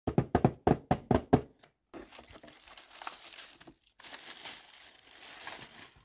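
Fingers drumming on a cardboard box, about eight quick knocks in the first second and a half, then the box being opened and the keyboard slid out, with a rustling and scraping of cardboard and packaging.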